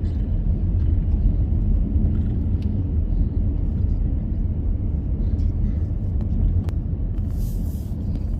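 Steady low rumble of road and engine noise inside a moving car's cabin, with one faint click about two-thirds of the way through.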